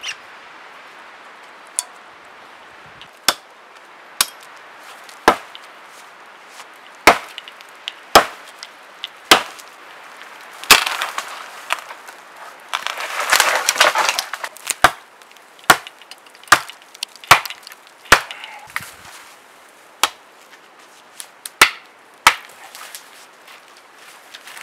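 Axe chopping into small birch trunks: sharp single blows, roughly one a second with short pauses, and a couple of seconds of dense crackling and rustling a little past halfway.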